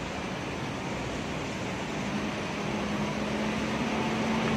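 Traffic on a rain-soaked road under steady rain: a continuous hiss of rain and tyres on wet tarmac. A vehicle's low engine hum grows louder over the last couple of seconds.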